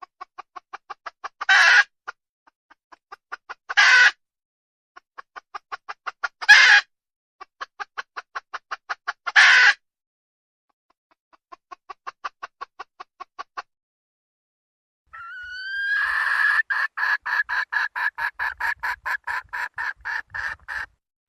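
Desi hen cackling: four times, a run of quick clucks speeds up and grows louder into a loud drawn-out squawk. A softer run of clucks follows, then a rising note breaks into a long, fast string of loud clucks near the end.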